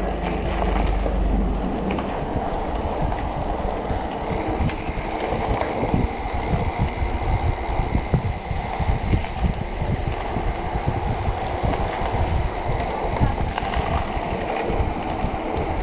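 Electric mountain bike ridden over a rough dirt trail: a dense, irregular rattle and clatter of the bike over bumps, with tyre and wind noise on the microphone. The rattling gets busier about two seconds in.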